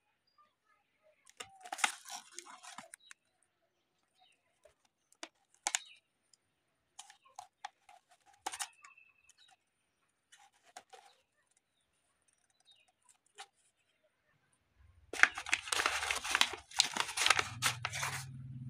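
A paper courier mailer bag crinkles in short bursts as it is handled. Near the end it is torn open in a longer, louder stretch of ripping and crumpling paper.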